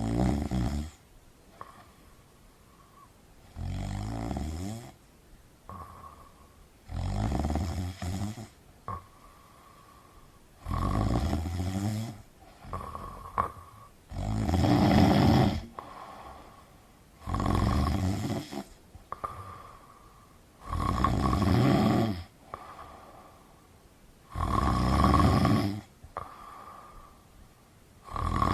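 A person snoring in slow, regular snores, one roughly every three and a half seconds, each lasting a second or so, about eight in all, with quiet breathing between them.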